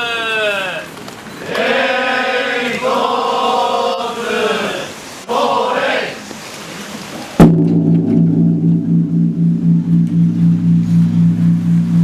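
Monks chanting calls together, then about seven seconds in Chion-in's great bronze temple bell is struck once with a swung wooden log: a sharp strike followed by a low, long hum that pulses evenly as it rings on.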